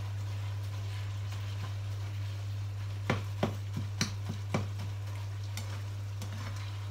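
Spatula stirring minced pork in a non-stick frying pan, with a quick run of about six sharp knocks of the spatula against the pan between about three and four and a half seconds in. A steady low hum runs underneath.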